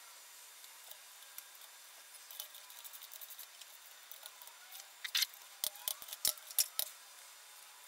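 Ratchet wrench working on the main-cap bolts of an engine block: scattered light metallic ticks, then a quick run of about five sharp clicks in the last third.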